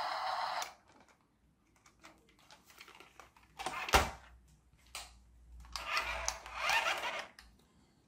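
Small clicks and clatter of the plastic parts of a toy RC tractor being handled and fitted back together, with one sharp click about four seconds in. A steady hiss stops abruptly under a second in.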